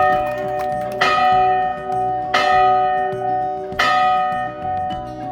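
The battleship USS Iowa's ship's bell is struck three times, about once every second and a half. Each stroke rings on with a steady, bright tone until the next one.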